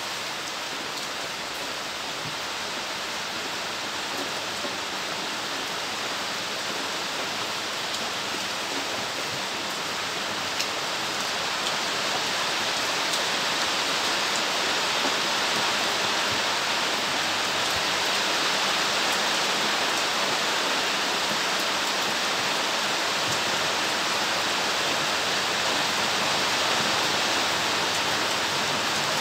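Steady rain: a dense, even hiss with a few sharper drop ticks, growing a little heavier about twelve seconds in.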